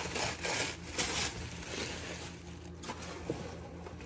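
Rustling and handling of packaging as items are lifted out of a subscription box, in quick bursts during the first second or so and then quieter, over a low steady hum.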